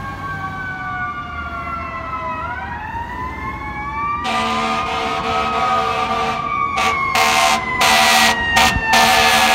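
Fire apparatus sirens wailing, their pitch gliding down and back up. From about four seconds in, loud steady air-horn blasts join them, broken by short gaps, and the whole grows louder as the trucks approach.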